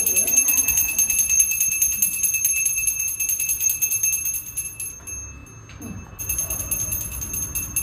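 Puja hand bell rung rapidly and steadily, a clear high ringing of fast, even strokes; it stops briefly about five seconds in and starts again a second later.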